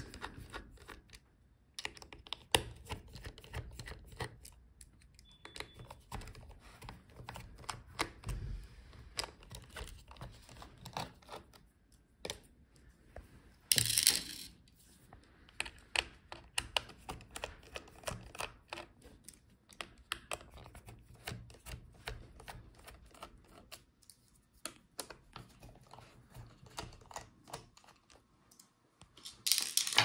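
Small clicks, ticks and scrapes of a precision screwdriver turning laptop hinge screws and of hands handling the plastic case, tape and cables, with one brief louder scrape about 14 seconds in.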